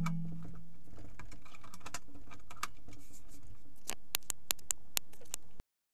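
Light scratchy handling noise and clicks from hands on the plastic-and-metal cover of an HP ProDesk 600 G1 SFF desktop case as it is latched shut. About four seconds in comes a quick run of about six sharp clicks, then the sound cuts out.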